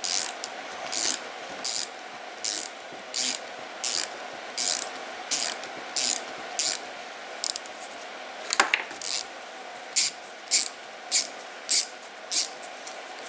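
Small ratcheting hand tool clicking in repeated short strokes, about one every three-quarters of a second, as it backs a nut off a 6.0L Powerstroke fuel injector. A single sharper click about two-thirds of the way through.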